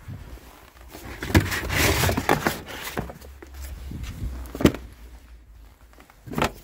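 Handling noise from clearing out a car boot: rustling with sharp knocks about a second and a half in, near the middle and near the end.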